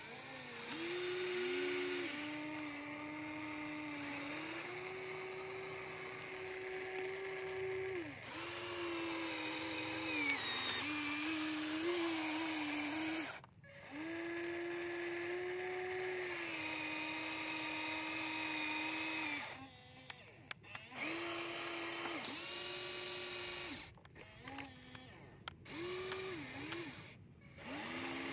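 Small electric gear motors of a Huina remote-control toy excavator whining as the arm and bucket work in the dirt. The pitch steps up and down as each motion starts and changes, and the whine cuts out briefly several times between moves.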